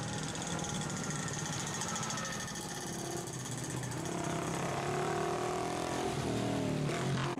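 Small motorcycle engine running with a rapid putter, its pitch rising and falling in the second half.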